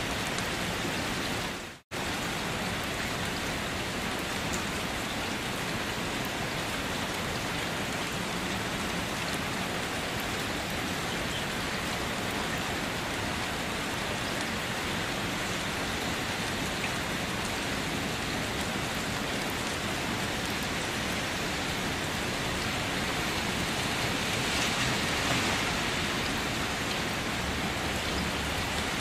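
Steady rain falling on a wet surface, an even hiss of drops. Just under two seconds in, the sound fades out to silence for a moment and then cuts straight back in. It grows a little louder around twenty-five seconds in.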